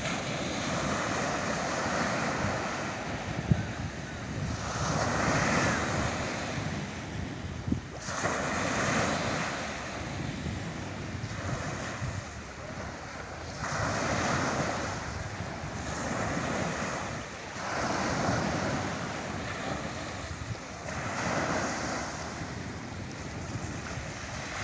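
Small waves breaking and washing up a sandy beach, the wash swelling and fading every two to four seconds.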